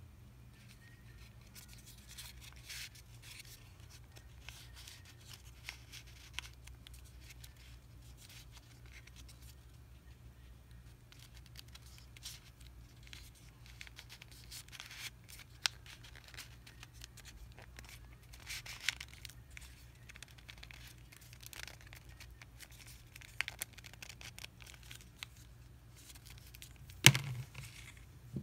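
Folded printer paper crinkling and rustling in scattered short crackles as the strips of a paper ninja star are handled, tucked and pressed together, over a low steady hum. A single sharp tap comes about a second before the end.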